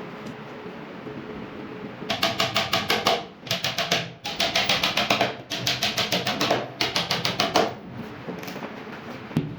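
Rapid sharp clicking at about eight clicks a second, in five short bursts starting about two seconds in, over a steady low background hum.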